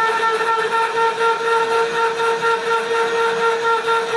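Electric geared DC motor of a chain-drive vise running under its push-button control, driving the jaw with a steady, even whine.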